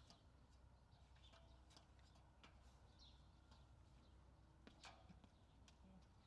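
Near silence: faint scattered clicks and knocks, with a few faint chirps.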